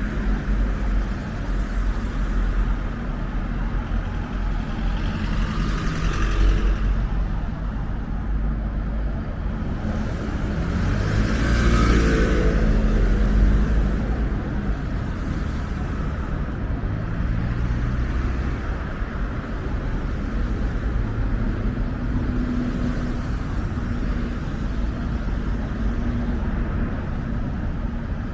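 Steady city road traffic: a low rumble of cars, with vehicles passing, the loudest swells about six seconds in and from about eleven to fourteen seconds in, the second with a gliding pitch as it goes by.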